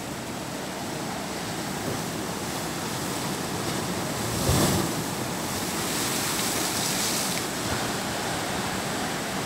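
Ocean surf washing against rocks, a steady rushing noise with one heavier thump about halfway through.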